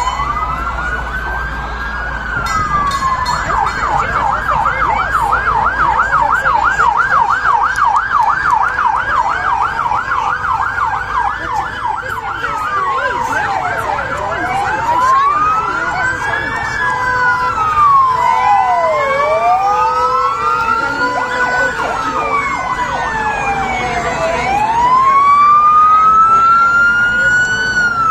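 Emergency vehicle sirens sounding. Slow rising and falling wails are broken, from about three seconds in to about twelve seconds in, by a fast yelp of roughly four to five cycles a second. After that two or more wailing sirens overlap, out of step with each other.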